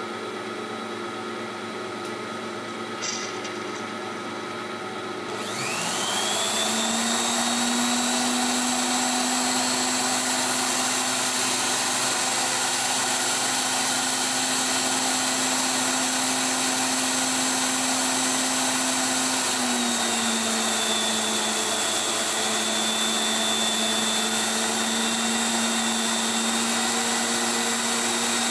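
Lathe tool post grinder running, grinding a steel R8 taper with a freshly dressed wheel. About five seconds in, a motor spins up with a rising whine and settles into a steady high whine. Around twenty seconds in, the pitch dips slightly, then holds steady again.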